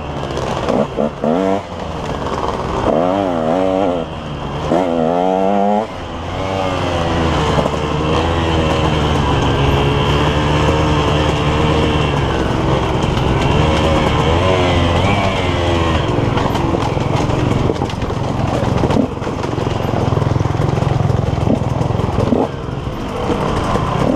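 KTM 150 XC two-stroke dirt bike engine at racing revs, the pitch climbing and dropping sharply with quick throttle changes and gear shifts for the first several seconds, then held high with small wavers.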